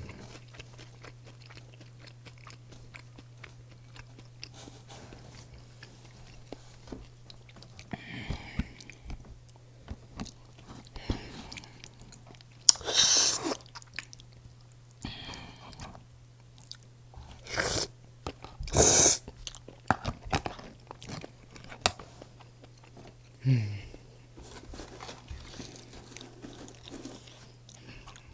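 Close-miked eating of a breaded cheese pork cutlet and rosé spaghetti: steady chewing, broken by a few loud crunchy bites about 13, 17 and 19 seconds in. A faint steady low hum runs underneath.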